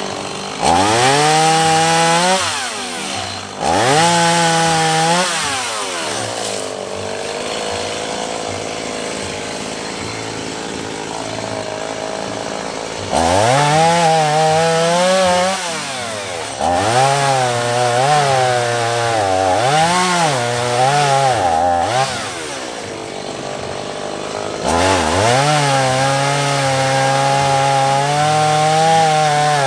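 Two-stroke chainsaw revved to full throttle several times, idling between runs. While cutting, its pitch dips and recovers as the chain bites into the wood.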